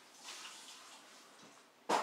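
A faint rustling shuffle, then a sudden loud knock near the end.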